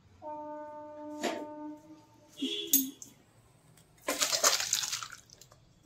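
Drumstick and potato curry poured from a steel kadhai into a steel bowl: a liquid splashing pour about four seconds in, lasting about a second. Before it come a steady tone about a second and a half long and a couple of metal clanks from the pan being handled.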